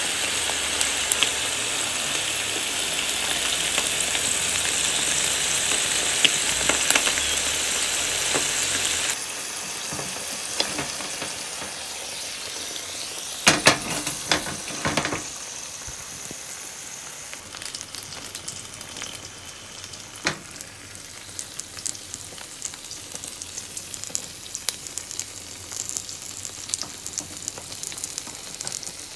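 Bacon and cheese sizzling inside a closed stovetop hot sandwich maker over a gas flame: a steady hiss full of fine crackles. It drops to a quieter sizzle about nine seconds in, with a few sharp clicks or knocks in the middle.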